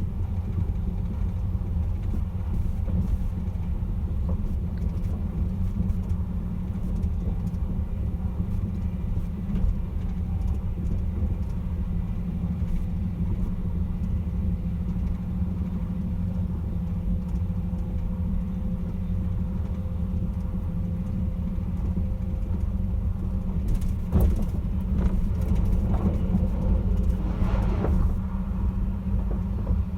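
Caledonian Sleeper train running: a steady low rumble, joined about 24 seconds in by a few knocks and a brief swell of higher-pitched noise.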